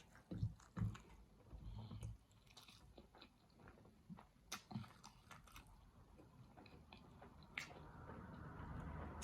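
A person biting and chewing food close to the microphone: scattered small wet mouth clicks and smacks, with a few louder bites in the first second.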